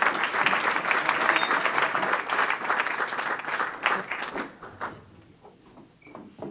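Audience applauding, a dense patter of many hands clapping that dies away about four and a half seconds in, leaving a few scattered sounds.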